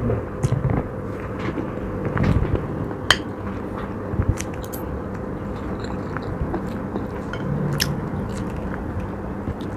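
A person chewing and biting into food close to the microphone, with scattered crisp crunches and clicks over a faint steady hum.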